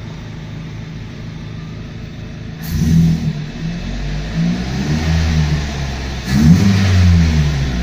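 Car engine, a swapped-in Vauxhall unit in an Opel Astra, idling while still warming up. From about three seconds in it is revved up and down several times, with the tachometer reaching about 2000 rpm.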